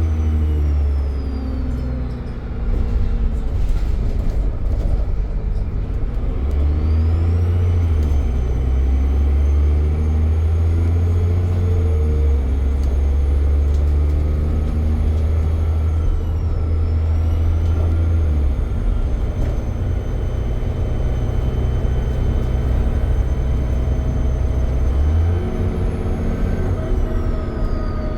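Dennis Trident bus engine running under load over a deep drone, with a high turbo whistle that climbs as it pulls and dips away each time the power comes off, several times over.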